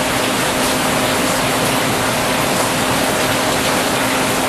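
Steady rushing background noise with a faint, even hum running through it.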